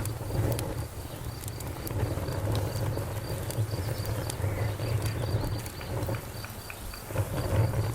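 Campfire wood burning with scattered sharp crackles and pops over a low rumble, and crickets chirping in a steady, evenly pulsing high trill.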